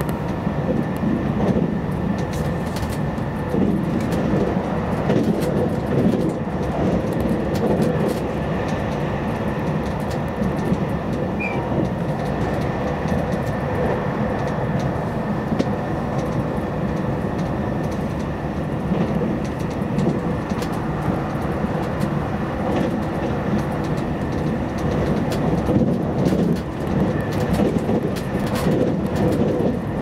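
Running noise inside the cabin of a JR Hokkaido 789 series electric limited express at speed: a steady rumble of wheels on rail with occasional sharp clicks and a faint steady high tone.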